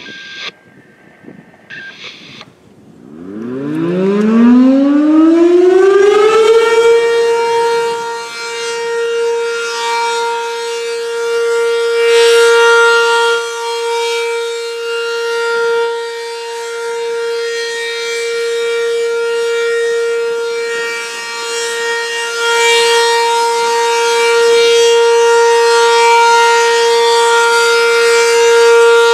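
B&N Mobil Directo BN52 outdoor warning siren winding up from a low growl to a rising pitch over about three seconds, then holding a loud, steady tone: the Alert signal of its monthly test. The tone swells and fades slightly in loudness as it sounds.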